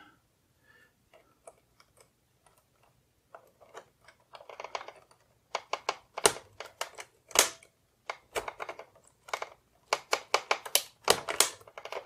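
Plastic clicks and taps from the keyboard of a Canon Typestar 10-II electronic typewriter as a loose keycap is pressed and snapped back onto its key. The clicks start about three seconds in and come quicker near the end.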